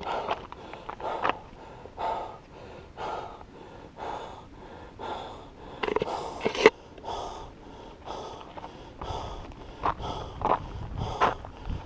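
A runner's heavy breathing close to the microphone, about one hard breath a second, out of breath after running.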